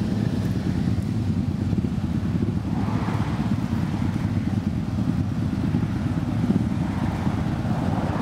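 Motorcycle engine idling, a steady low rumble that does not rise or fall.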